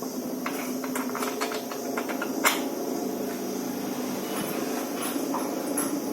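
A run of sharp clicks and light knocks, typical of handling tools and parts during workshop work, with one louder knock about two and a half seconds in, over a steady wavering hum or whine.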